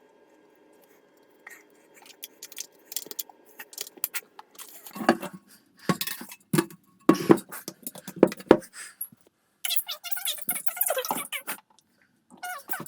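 A series of light clinks, knocks and scrapes of hard objects being handled, with a denser stretch of rattling near the end.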